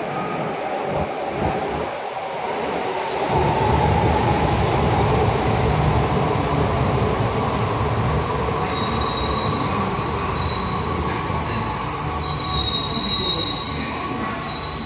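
Kyoto Subway Tozai Line train running into an underground station, its rumble building a few seconds in. High steady squeals from the wheels set in over the last few seconds as it slows to a stop.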